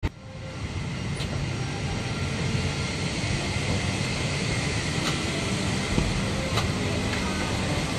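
Steady rush and hum of an airliner cabin's ventilation at the gate, broken by a few sharp clicks.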